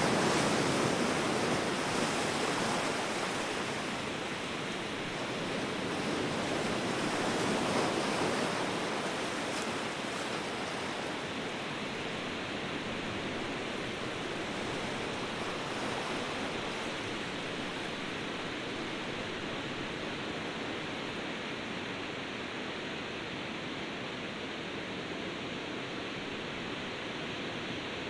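Ocean surf: a steady rush of waves. It swells near the start and again about seven seconds in, then holds even.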